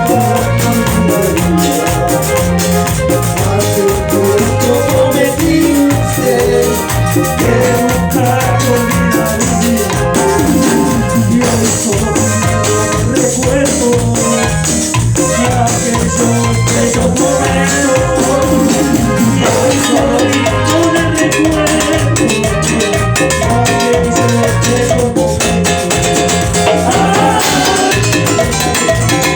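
Chichera band music, Ecuadorian cumbia-style: an instrumental stretch with a steady bass-and-drum beat under melodic lead lines.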